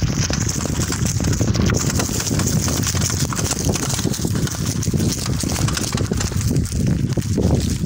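Wind rushing over the microphone of a bike-mounted or handheld camera, with the mountain bike rattling and knocking over a bumpy dirt trail: a steady low rumble dotted with many small clicks.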